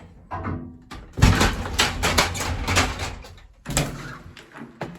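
Elevator doors sliding open, a rattling rumble lasting about two and a half seconds.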